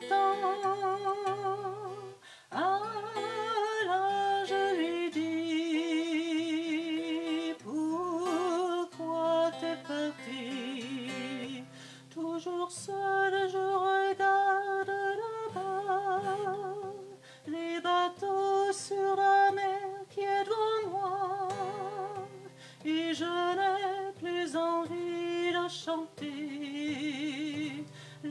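A woman singing a slow, quiet melody in long held notes with a wide vibrato, accompanied by her own acoustic guitar, with short pauses between phrases.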